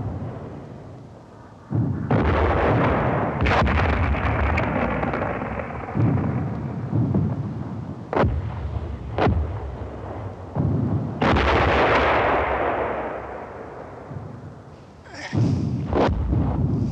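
Battlefield film sound of two shell explosions, about two seconds and eleven seconds in, each a sudden blast followed by a long rumble that dies away. Single sharp shots crack between them, and there is a quick cluster of cracks near the end.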